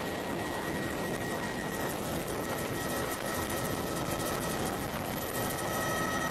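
Helicopter in flight, its engine and rotor running as a steady drone with a faint steady high whine.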